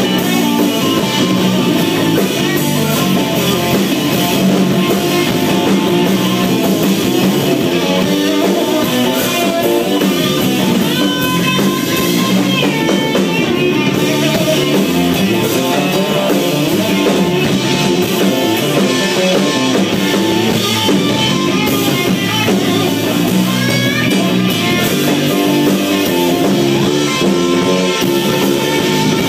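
Rock band playing: electric guitar lines with bending notes over a drum kit, without vocals.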